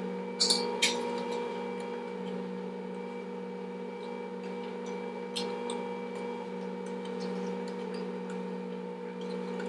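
Electric kitchen appliance motor running with a steady hum, with a few light clicks from handling about half a second in, about a second in, and again about five and a half seconds in.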